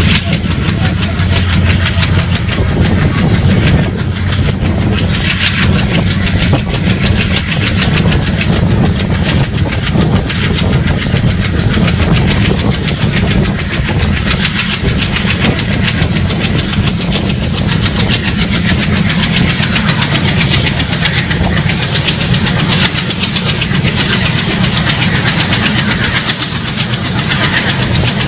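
WDM-3A ALCO diesel locomotive's 16-cylinder engine chugging steadily under power as it hauls the train, heard from on board, with a fast even throb and strong low rumble.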